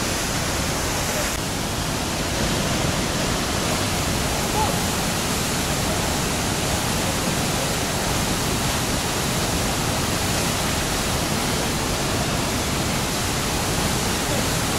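Waterfall: a steady rush of falling water, loud and unbroken.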